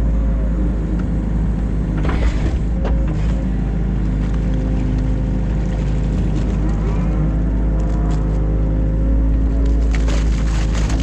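New Holland Kobelco E50.2 excavator's diesel engine running steadily, with brief clattering and scraping about two seconds in and again near the end.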